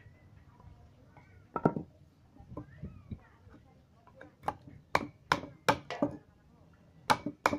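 High-speed-steel Kwaiken-Bowie knife chopping into a hand-held wooden stick. There is one sharp chop about a second and a half in, then a run of chops about three a second from just past halfway, with a short pause before the last few.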